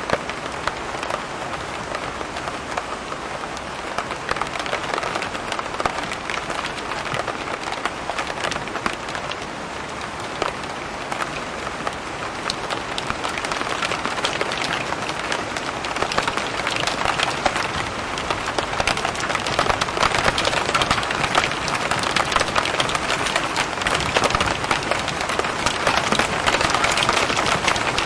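Heavy thunderstorm rain falling steadily, a dense hiss of countless drops spattering on surfaces, growing somewhat louder about halfway through.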